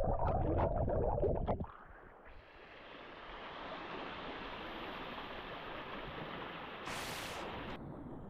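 Rushing water of a waterfall, an even steady noise. The first second and a half is louder and heavier, then cuts off abruptly, and after a short dip the rush returns more softly and holds steady.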